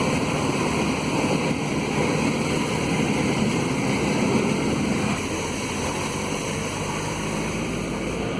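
Floodwater rushing across a road, with a vehicle engine running. The noise eases slightly about five seconds in.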